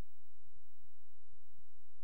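A steady low hum, unchanging throughout, with no other sound over it.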